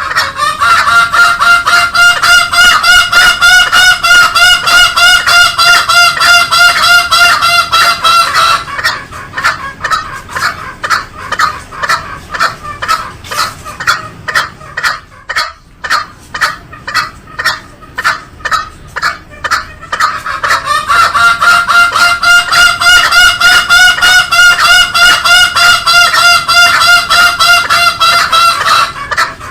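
Green junglefowl calls repeated in a rapid, pulsing train of about three a second. A long, slightly wavering held note lies over them for about the first eight seconds and again through the last nine.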